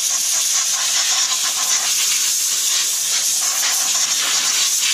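A pressurised jet hissing steadily against a car's wheel hub, blasting the hub face clean before a wheel spacer goes on.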